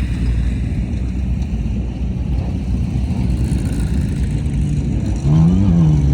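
Off-road race vehicle engine over a steady low rumble. About five seconds in, a vehicle passes close, louder, its engine pitch rising and then falling.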